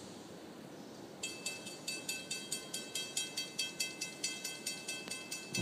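Railroad grade-crossing warning bell starting to ring about a second in, with rapid, even strikes about four a second, while the crossing gates rise.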